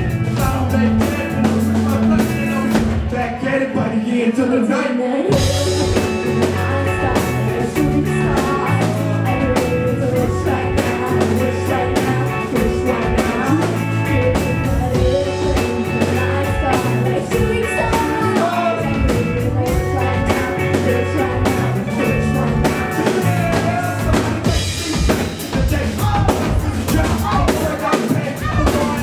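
Live band playing a hip-hop song cover: drum kit, electric guitar and keyboards with a steady bass line, under a lead vocal on microphone.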